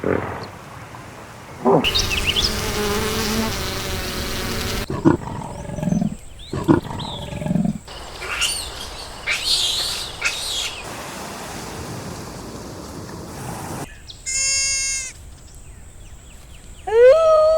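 A run of separate wild-animal sound clips: deep growls and roars typical of a tiger, followed by high rising and falling chirps and whistles and a short high call.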